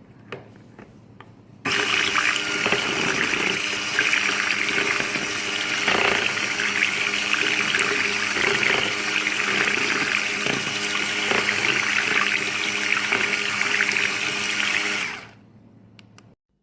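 Electric hand mixer whirring in liquid cold-process soap batter, switched on about two seconds in, running steadily and switched off shortly before the end: the final mixing of the batter before it is poured into the mould.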